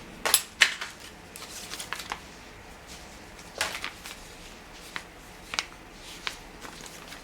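Short, sharp rustles and clicks of packaging and parts being handled during an RC car unboxing, coming in scattered bursts with the loudest pair about half a second in.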